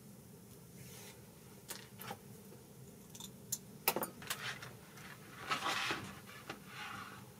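Small hard objects being handled: a series of light clicks and clinks, with a short rustle about five and a half seconds in, over a faint steady low hum.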